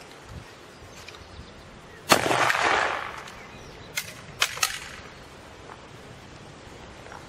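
A single shot from a Dreyse needle gun about two seconds in, its report trailing off in an echo lasting nearly a second. About two seconds later come three sharp metallic clicks as the rifle is handled to reload.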